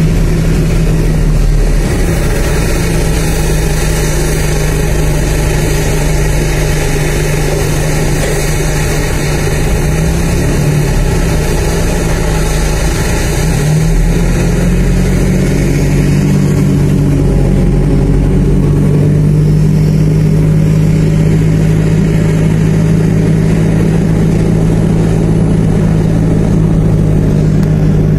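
Pushback tug's engine running steadily as it drives across the apron, heard from inside the cab, with a steady low hum. Its pitch rises a little about halfway through.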